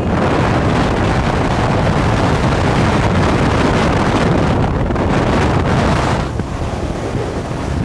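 Motorboat under way, its engine largely buried under heavy wind noise on the microphone and rushing water. The noise eases about six seconds in.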